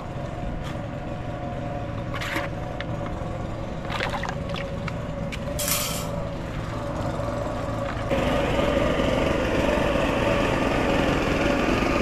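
Motorboat engine running steadily as the boat passes on the river, growing louder about eight seconds in, with a few faint knocks and a short hiss along the way.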